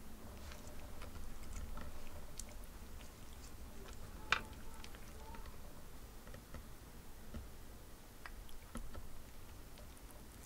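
A cat chewing and biting on the red cord of a plush toy fried shrimp, with small scattered clicks and one sharper click about four seconds in.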